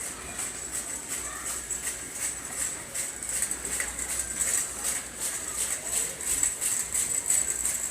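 Background music carried by a steady, high-pitched ticking rhythm of a few beats a second.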